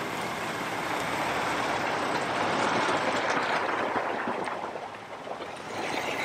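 Tractor-trailer truck driving past. Its noise builds to a peak about three seconds in, then fades as it pulls away.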